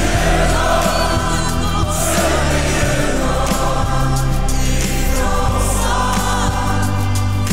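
Gospel choir singing held notes over backing music with a deep, steady bass.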